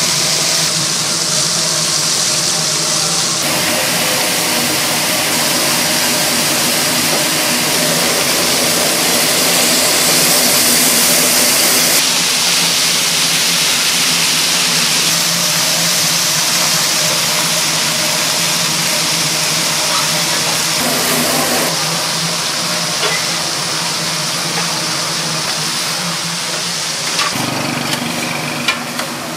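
Steady loud roar of fish-grilling equipment, with a low hum under it and its tone shifting a few times. A few light clicks and knocks come near the end.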